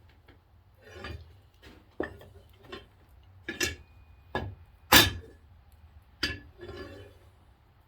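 Irregular knocks and metallic clinks of a hot steel fire poker being struck straight against an anvil: about eight hits of varying force, the loudest about five seconds in with a brief ring.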